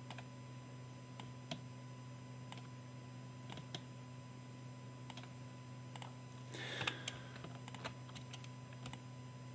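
Faint, scattered clicks of a computer keyboard and mouse, a key or click every second or so, over a steady low hum, with a brief rustle about two-thirds of the way through.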